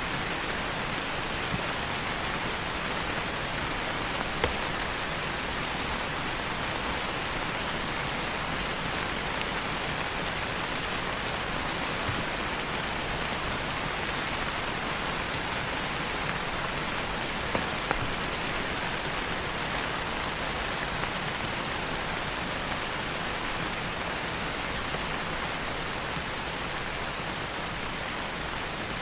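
Steady rain falling, an even hiss with a few louder drops.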